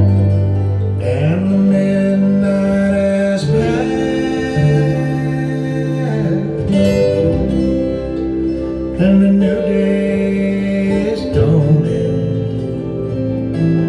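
Music played back through a pair of open-baffle hi-fi loudspeakers and picked up in the room: a slow piece of long held notes over a sustained bass line.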